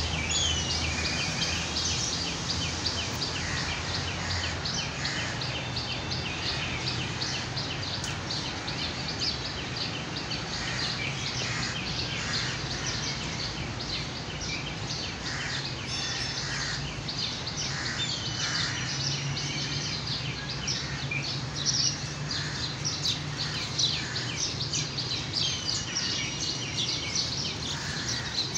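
Many small birds chirping and twittering without a break, with a few short whistled notes that curve in pitch, over a low steady background hum.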